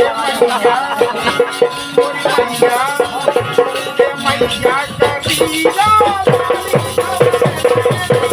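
Rai folk music played without singing: a bending melody line over a fast, steady beat of about four strokes a second, with a shaker-like rattle. Deeper drum strokes join about six seconds in.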